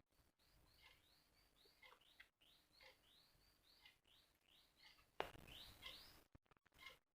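Faint, repeated short falling bird chirps, about two or three a second. About five seconds in there is a sharp click, followed by roughly a second of handling noise.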